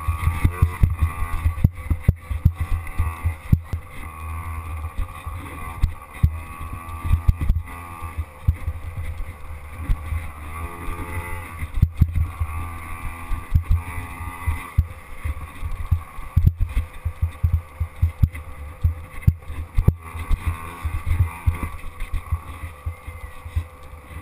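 Small youth dirt bike engine revving up and down as it is ridden over a bumpy trail. Heard from a helmet-mounted camera, with wind buffeting and frequent sharp knocks from the bumps.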